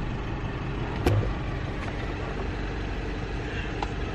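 Pickup truck engine idling steadily, heard from inside the cab, with a single sharp click about a second in.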